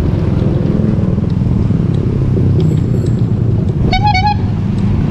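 Steady road-traffic rumble from motor vehicles around a moving bicycle, with a short vehicle horn toot about four seconds in.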